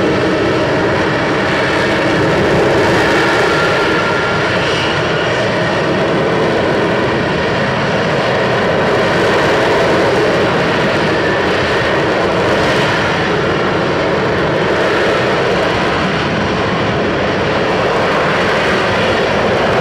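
Marine F-35B's single Pratt & Whitney F135 jet engine running loud and steady: a continuous dense jet noise with a faint high whine on top, only slightly swelling and easing.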